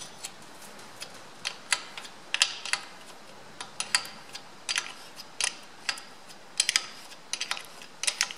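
A hand spanner clinking on the steel flange nuts of a Ferguson FE35's rear axle housing as they are run up and tightened by hand: a string of sharp metallic clicks, some single and some in quick clusters, at irregular spacing.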